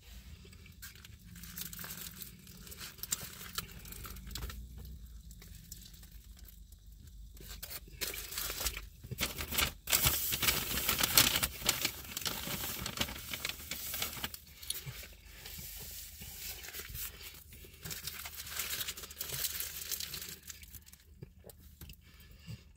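Paper burger wrapper crinkling and tearing as the burger is handled and eaten, loudest in a stretch about halfway through.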